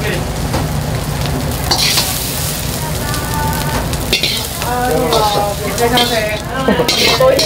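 Metal ladle scraping and clinking in a steel wok as fried rice is scooped out and portioned onto plates, with sharp scrapes and knocks over a steady low rumble.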